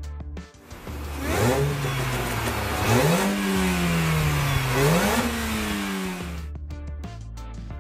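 Modified Mini Cooper S GP1's supercharged 1.6-litre four-cylinder, running aftermarket headers and a de-cat exhaust, revving: the pitch climbs three times, sagging back after each climb. It cuts off near the end, where music takes over.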